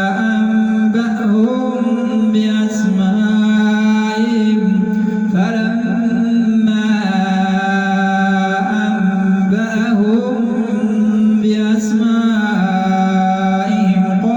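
A man's voice chanting the Quran in the Warsh reading, holding long notes and ornamenting them with pitch turns, pausing briefly between phrases.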